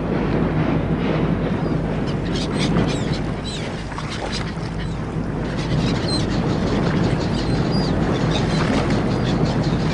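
Harbour ambience laid over silent film: a steady low hum of a ship's engine under a noisy wash. From a couple of seconds in, birds call now and then with short chirps.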